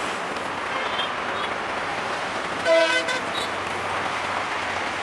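Steady road traffic noise from a busy flyover, with a short horn toot about halfway through.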